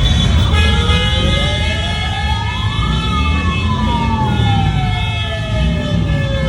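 Siren winding up in pitch for about two and a half seconds, then slowly winding back down, over a steady low rumble and several steady high tones. It is sounded to celebrate a new motorcycle purchase.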